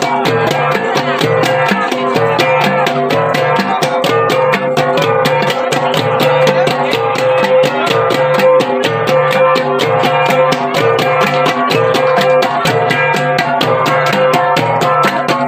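Ensemble of Kankanaey Igorot gangsa, flat bronze gongs, struck in a fast, steady interlocking rhythm with their tones ringing on together.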